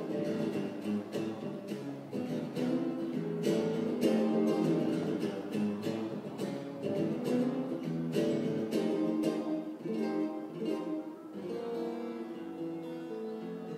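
Acoustic guitar being strummed, chords ringing out one after another.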